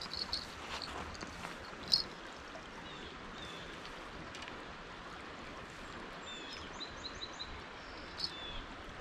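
Steady river-bank ambience of flowing water, with a small bird chirping in short runs of quick notes. A few light clicks come through, the sharpest about two seconds in.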